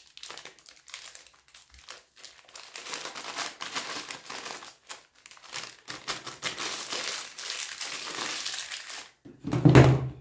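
Plastic packet of besan (gram flour) crinkling and rustling as it is handled and opened, with a louder thump near the end.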